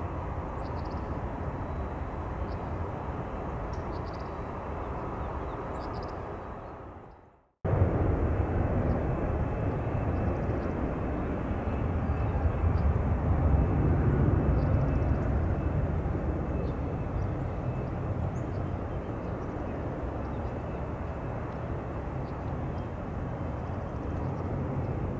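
Jet airliner engines rumbling across the airfield. The sound fades out, then after a cut comes back as a steady rumble that swells louder for a few seconds partway through before easing off.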